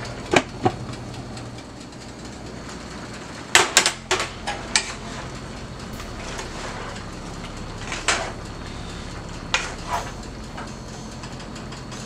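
Clinks and knocks of a glass pot lid and a wooden spatula against a frying pan as steamed vegetables are uncovered and stirred: a few sharp clatters, a cluster of them about four seconds in, over a low steady hum.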